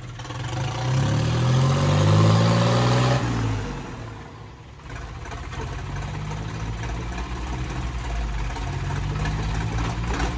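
Sonalika tractor's diesel engine revving up, its pitch rising for about three seconds, then easing off and running steadily.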